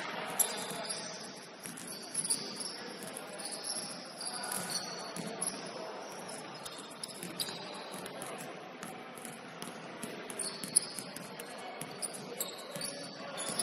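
Basketball game on a hardwood gym floor: sneakers squeak in many short high chirps, with scattered sharp taps of a bouncing ball.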